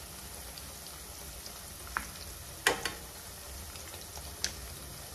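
Masala paste frying in oil in a kadhai, a steady sizzle, with a few sharp clinks of a spoon against a steel bowl, the loudest a little past halfway.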